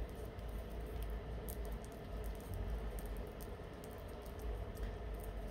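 Quiet room tone: a steady low hum with faint scattered ticks.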